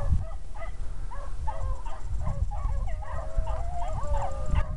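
A pack of hounds baying together while running a rabbit, several voices overlapping, with one long drawn-out howl in the second half.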